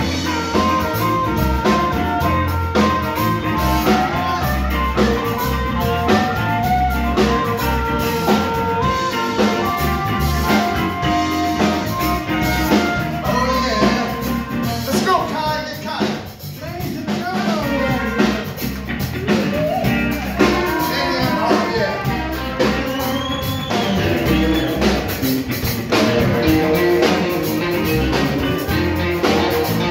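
Live blues band playing, with drum kit and guitar. About halfway through the music thins briefly, then sliding, bending notes come in.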